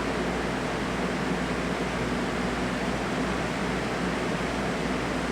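Steady hiss with a faint low hum underneath, unchanging throughout, with no distinct sounds.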